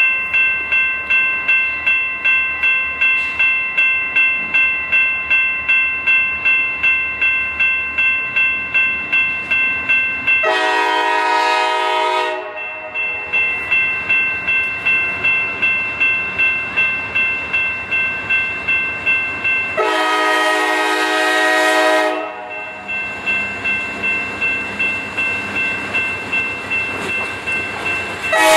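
Grade-crossing bell ringing steadily about twice a second, while an approaching CSX diesel locomotive's air horn sounds two long blasts, about ten and twenty seconds in, and starts a third at the very end.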